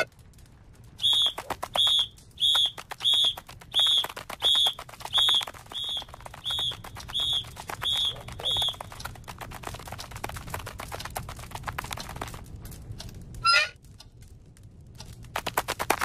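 Cartoon insect sound effects: a run of about a dozen short, high chirps, one every two-thirds of a second or so, over a buzzing rattle. A rattling buzz carries on after them, and there is one sudden sharp sound a couple of seconds before the end.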